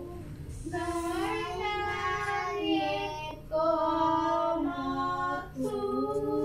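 Children singing a Spanish-language worship song, in slow phrases of long held notes.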